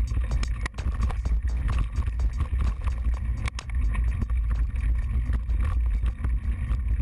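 1997 GT LTS Team full-suspension mountain bike rattling over a rough dirt trail, heard through a handlebar-mounted GoPro. There is a heavy low rumble of wind and vibration, with frequent sharp clicks and knocks from the bike.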